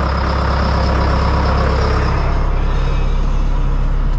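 John Deere tractor's diesel engine running steadily, heard close from the cab, a loud even low hum with a fast, regular pulse.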